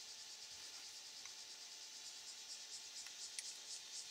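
Faint steady high-pitched chirring hiss, with a few light clicks of small hand tools and parts being handled. Past the halfway mark a rhythmic high pulsing, about four a second, sets in and grows louder.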